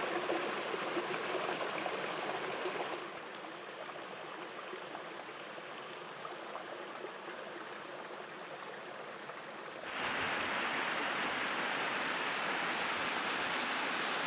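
Mountain stream water rushing and splashing over granite boulders in small cascades, an even wash with no tune or beat. It drops abruptly to a quieter flow about three seconds in, then jumps abruptly to a louder, hissier waterfall rush about ten seconds in.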